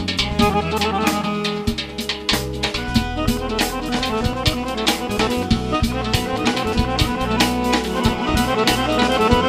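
Live Azerbaijani wedding music: a garmon (Azerbaijani button accordion) and a synthesizer keyboard playing a melody over a nagara drum beaten by hand in a steady, quick rhythm.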